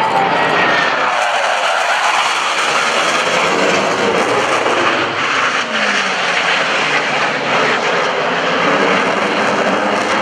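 Boeing F/A-18 Hornet jets, each with twin General Electric F404 engines, making loud, steady jet noise during high-speed passes. The pitch falls as each jet goes by, once near the start and again around six seconds in.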